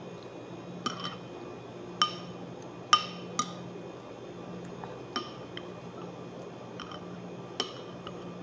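Metal spoon clinking against a ceramic soup bowl about eight times as noodles are scooped up, each clink sharp and briefly ringing, the loudest about two and three seconds in. A steady low hum runs underneath.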